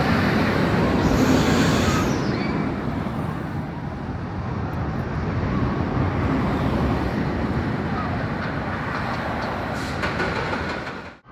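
X2 roller coaster train running along its steel track: a steady rumble that is loudest and hissiest about one to two seconds in.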